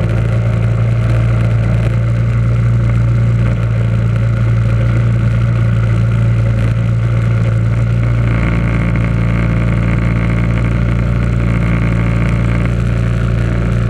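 1976 Simplicity garden tractor's engine running steadily at a constant speed, a loud, even drone.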